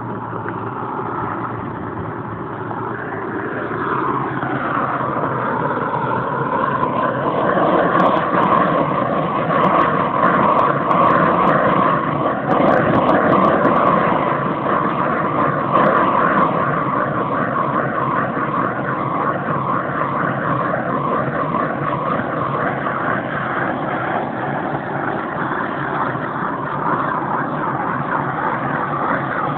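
Motor of a power sprayer running steadily. Its pitch drops and it grows louder about four seconds in.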